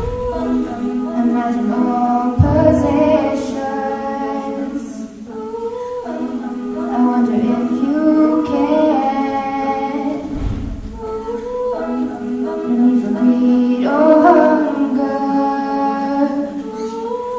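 Girls' a cappella group singing in harmony, holding sustained chords that change every few seconds.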